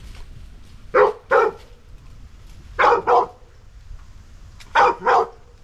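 A dog barking in pairs: three double barks, about two seconds apart.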